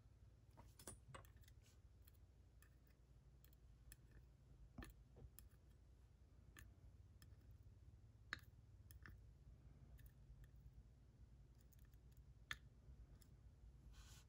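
Faint, scattered small metal clicks of a disassembled dimple lock's pins and parts being handled, with two sharper clicks about eight and twelve seconds in, over a low hum.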